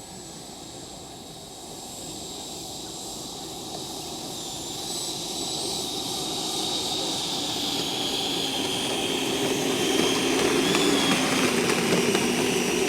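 E-flite Viper 90mm electric ducted-fan jet whining in flight and growing steadily louder as it approaches. Its high whine slides down in pitch near the end.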